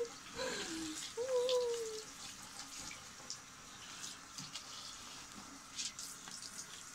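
Water from a hand-held shower running and splashing over a wet dog in a bathtub, a steady hiss with small drips and splashes. About a second in there is a brief wavering vocal sound.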